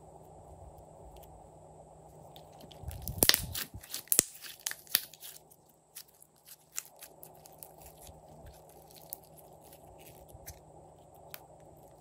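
Glossy slime being stretched and squeezed by hand, giving sticky clicks and pops, with a dense cluster of loud crackles about three to five seconds in and scattered fainter clicks after.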